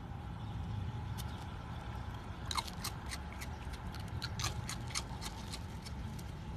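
Raccoon crunching Froot Loops cereal: sharp, crisp crackles coming irregularly a few times a second, starting about two and a half seconds in, over a steady low rumble.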